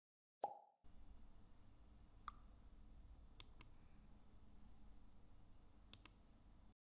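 Faint clicks over near-silent room tone: one click with a brief ring about half a second in, then a few soft clicks, two of them in quick pairs.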